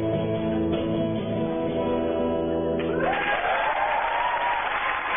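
A held final chord on acoustic guitar rings and stops about three seconds in, and the audience breaks into applause and cheering.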